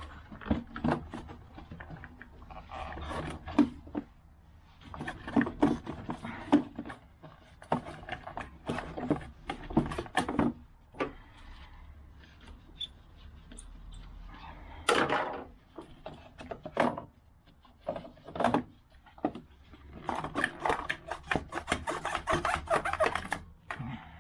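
Irregular clicks, knocks and scraping of hand tools and plastic parts as the clips and screws of a Toyota's air intake housing are undone and the housing is worked loose. There is a dense run of quick clicks near the end.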